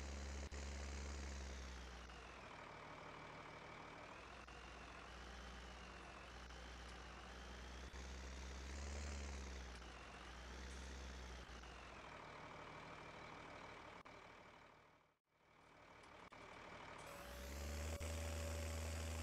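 Combine harvester engine running, its pitch wavering up and down. It fades out about fifteen seconds in and comes back louder, with a steady whine added.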